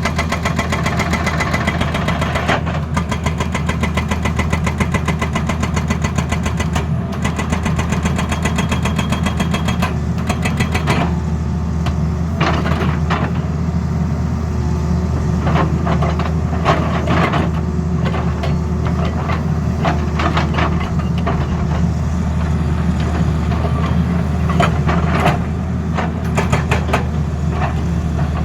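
Excavator's diesel engine running steadily under load, with a rapid, even hammering for about the first eleven seconds, then irregular knocks and clanks.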